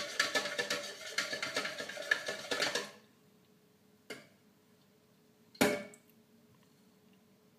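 Flour being sifted through a stainless steel mesh sieve: rapid small metallic rattling and ticking from the shaken sieve, which stops about three seconds in. Two single knocks follow, the second louder, as the spoon and sieve touch the jug.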